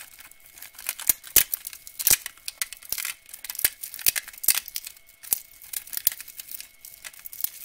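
Clear plastic blister packaging being pulled apart and crinkling as pliers are worked out of the tray: a dense, irregular run of sharp crackles and snaps.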